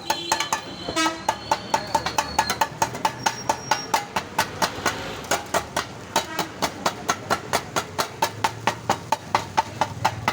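Metal chopping blades beating kothu parotta on a cast-iron tawa, a fast rhythmic clanging of several strikes a second.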